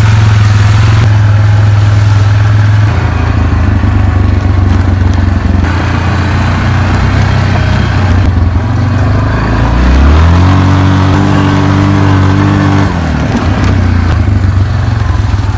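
Small Kawasaki off-road motorbike engine running as it is ridden, with splashing through a muddy puddle at the start. About ten seconds in the engine revs up and holds a higher pitch for a few seconds, then drops back.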